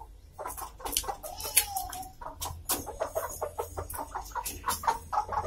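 Chickens clucking: a run of short clucks, with one drawn-out call about a second and a half in.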